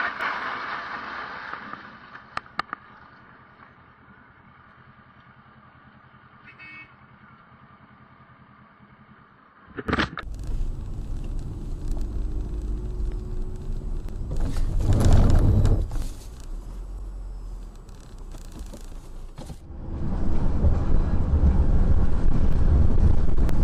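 Vehicle noise from several dashcam clips in turn. Traffic noise fades into a quiet stretch with a few clicks. From about halfway there is a car's road and engine noise with one loud swell, and near the end a louder, steady low rumble inside a bus cab.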